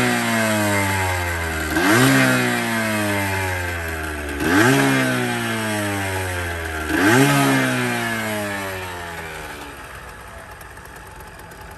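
Yamaha DT50's 50cc two-stroke single-cylinder engine revved in three quick throttle blips about two and a half seconds apart, the revs falling away slowly after each one, then settling to a quieter steady idle near the end.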